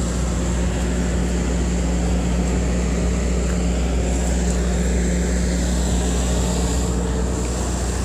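Steady low mechanical drone with a thin high whine above it, unchanging throughout, like a motor running at constant speed.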